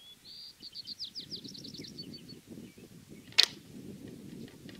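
A single shot from a 40 lb Toelke Whip longbow: one sharp crack about three and a half seconds in, the bowstring's release and the arrow striking the bag target. Before it, a bird sings a fast run of high chirping notes that fall in pitch.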